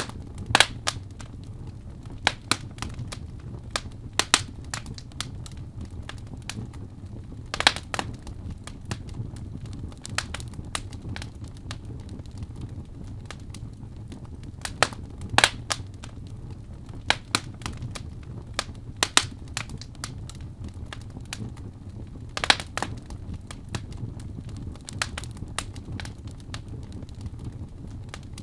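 Wood fire crackling in a fireplace: sharp, irregular pops every second or so, a few of them much louder snaps, over a low steady rumble of the flames.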